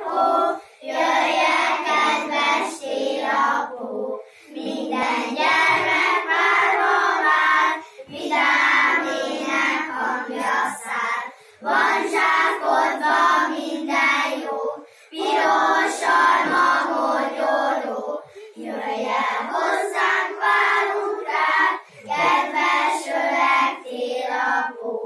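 A group of young children singing a song together in unison, in phrases of about three to four seconds with short breaks for breath between them.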